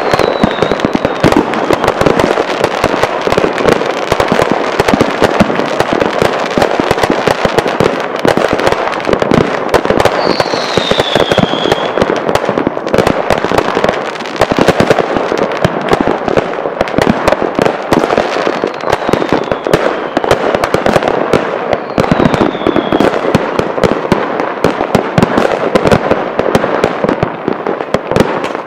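Dense, continuous barrage of fireworks, with rapid bangs and crackling from many going off at once. A few falling whistles sound over it, the clearest about ten seconds in.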